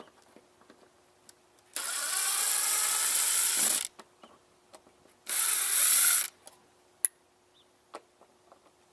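A ratcheting tool backing out bolts on a camper's water heater, running in two bursts of about two seconds and one second, with a few light clicks between.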